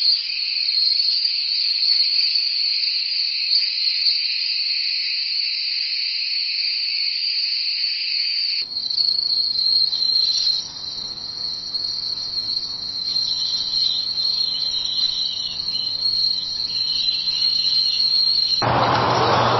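Steady night chorus of insects such as crickets, a continuous high trill. The ambience changes about a third of the way in, and about a second before the end a louder, steady even noise takes over.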